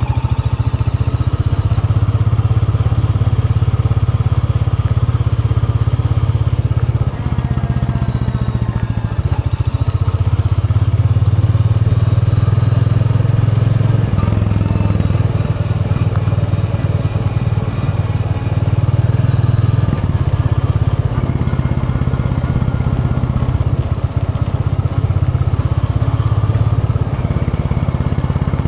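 Royal Enfield Bullet 350's single-cylinder engine running steadily as the motorcycle is ridden along, with a few brief dips in level.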